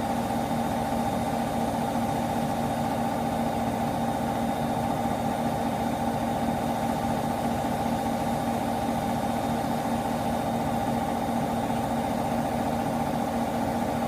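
Washing machine on its spin cycle, the drum spinning at a steady speed with a constant hum.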